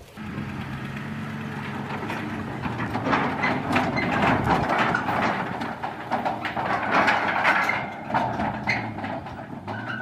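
Pickup truck engine running as it tows a tandem-axle gooseneck flatbed trailer loaded with corrugated galvanized metal culvert pipes. From about three seconds in, the trailer and pipes rattle and clank over rough ground.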